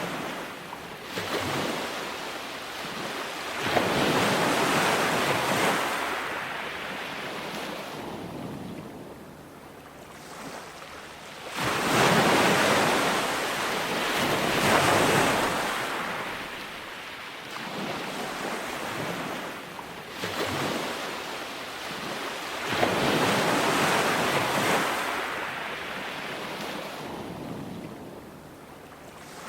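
Ocean surf breaking on a beach, rising and falling in slow swells, with the biggest breakers coming about every ten seconds.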